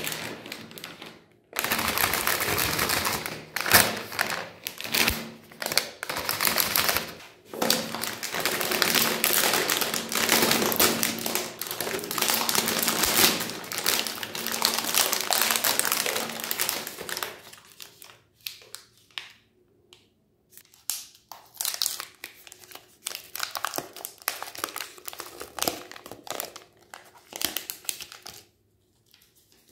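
Plastic snack wrappers crinkling and tearing as chocolate bars are unwrapped by hand. The crinkling is dense for the first half and thins to sparser rustles after about 18 seconds.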